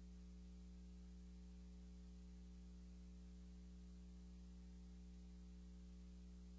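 Near silence: a faint, steady electrical hum under a light hiss, with nothing else.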